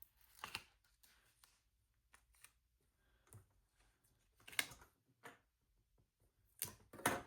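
Paper handling: light rustles and short taps of sticker book pages and sticker sheets being leafed through, with a few louder clicks, the loudest near the middle and near the end.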